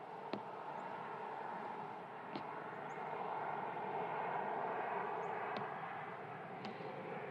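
Steady outdoor background noise that swells in the middle and eases off again, with a few faint small clicks.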